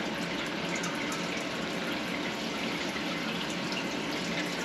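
Honing oil running and splashing steadily in the work tank of a Sunnen SV-30 CNC vertical hone.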